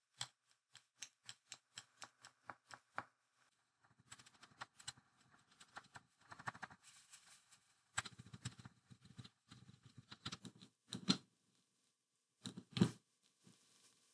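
Stewart Clipmaster clipper head being twisted off its Sunbeam motor housing by hand. First comes a quick run of light metal clicks, about four a second, then scraping and rubbing of metal parts, and a few louder knocks near the end as the separated parts are handled.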